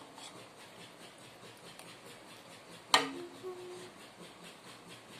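A metal spoon clinks sharply once against a ceramic plate about three seconds in, with faint, quiet scrapes and taps of cutlery around it.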